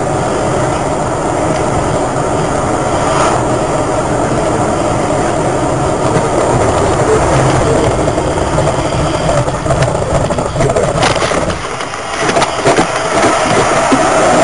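Steady road and engine noise heard inside a car's cabin as it drives on a slushy highway. About nine seconds in, a run of short, sharp clatters and knocks starts and continues almost to the end.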